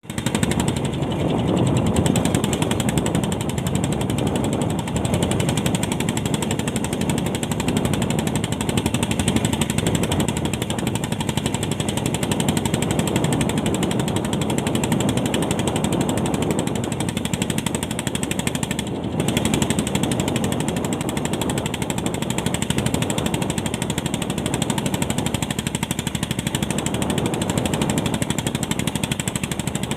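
Fishing boat's inboard engine running steadily, a rapid, even pulsing beat.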